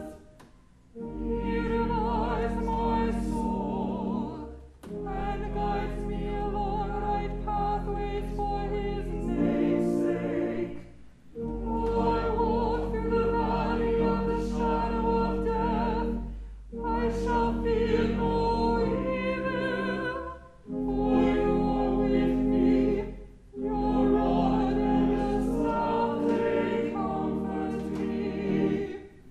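A small choir singing an anthem in sustained chords over low held accompaniment notes, phrase by phrase with short breaks between phrases.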